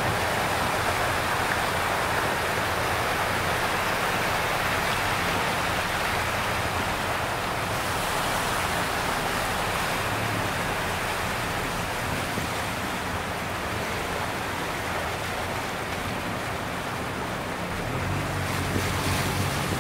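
Muddy flash-flood water rushing and churning across a road in a steady, continuous rush.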